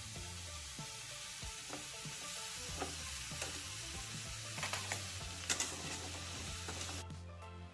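Jackfruit pieces and masala sizzling in hot oil in a metal kadhai while a spatula stirs them, with a few sharp spatula clicks and scrapes against the pan around the middle. The sizzle cuts off suddenly near the end.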